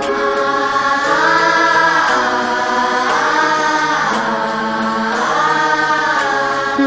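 Vocal music: sung melody with long held notes that glide slowly up and down, in a South Asian style.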